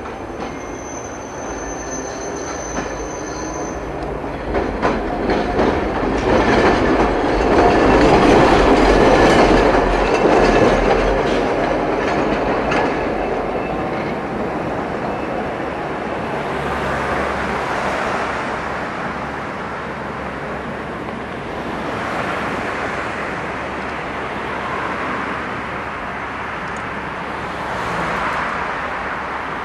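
Street trams running on street track: a high wheel squeal from a tram on the curve in the first few seconds, then a tram passing close by, wheels rumbling and clicking over the rail joints, loudest about eight to ten seconds in. After that, a lower passing rumble of trams and road traffic.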